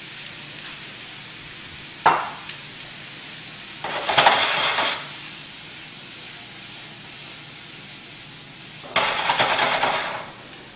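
Mushrooms and red onion sizzling in butter in a frying pan. There is a sharp clack about two seconds in, and the sizzle flares up twice, around four and nine seconds in, as the pan is stirred with metal tongs.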